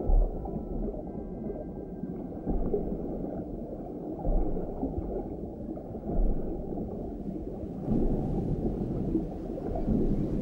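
Underwater sea recording with whale vocalizations: a dense low, gurgling churn with deep thuds every second or two, and faint thin calls in the first few seconds.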